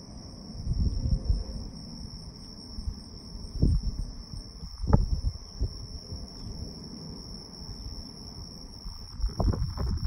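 Crickets chirping in a steady, high, unbroken trill. Several low gusts of wind rumble on the microphone, about a second in, a little before the halfway point, and near the end.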